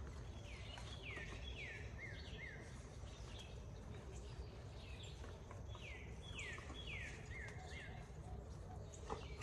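A songbird singing two phrases of clear downslurred whistles, each a run of four or five notes that step lower in pitch, over a steady low background rumble.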